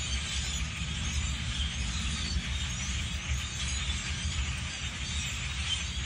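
A large flock of birds calling loudly in the treetops, many overlapping chirps merging into a dense, continuous chatter, over a steady low rumble.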